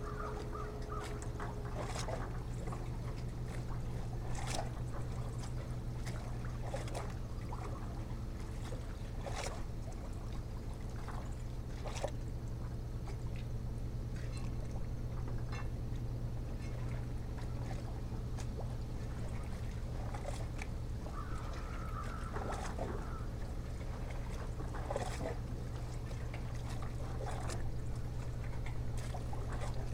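A steady low mechanical hum with scattered sharp clicks, and a short wavering call about two-thirds of the way through.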